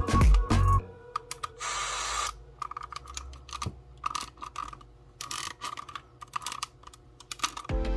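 Mechanical clicking and clatter of a cassette Walkman's buttons and tape mechanism being worked, with short stretches of a steady whine between the clicks. Music cuts off under a second in and comes back near the end.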